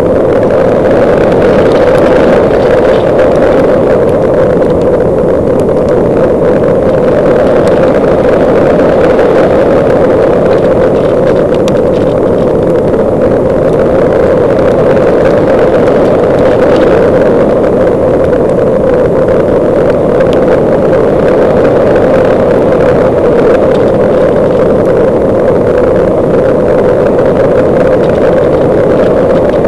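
Parkzone Radian's electric motor and folding propeller droning steadily, with air rushing past, heard through a small camera mounted on the model glider's fuselage.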